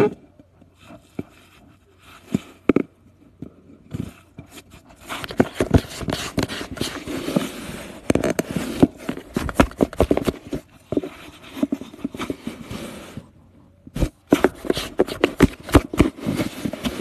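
Cats scuffling and clawing inside a cardboard box: a run of scratches, scrapes and knocks on the cardboard. It is sparse at first, grows dense about five seconds in, and pauses briefly near the end before starting again.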